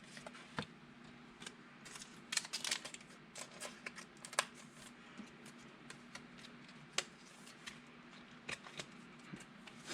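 Scattered light clicks and taps of hands at work, a quick cluster about two and a half seconds in and a few sharper single ticks later, over a faint steady hum.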